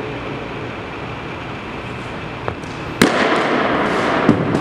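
A baseball smacking into a catcher's mitt about three seconds in: one sharp, loud pop that echoes around the gym. A second sharp knock follows a little over a second later as the catcher pops up and throws.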